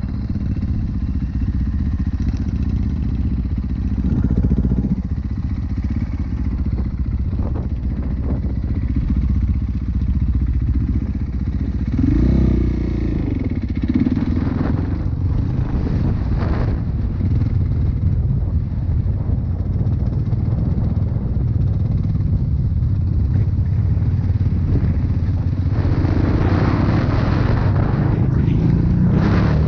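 Motor vehicle driving along a road: a steady low engine and road rumble.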